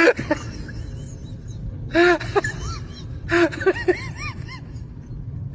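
Husky vocalizing in short rising-and-falling 'woo' calls: a couple about two seconds in, then a run of about five from about three and a half seconds, over a steady background hiss.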